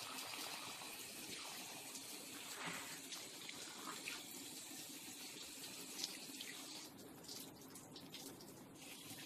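Faint steady hose water running and splashing over a gutted crappie and onto a glass tabletop as the fish is rinsed inside and out, easing a little about seven seconds in.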